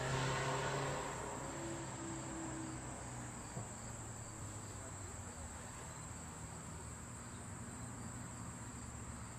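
Steady high-pitched drone of insects, with the rumble of passing traffic fading away over the first couple of seconds.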